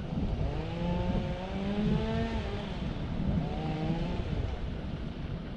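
A motor vehicle's engine accelerating and easing off, its pitch rising and falling, with a second shorter surge about three seconds in, over wind rumbling on the microphone.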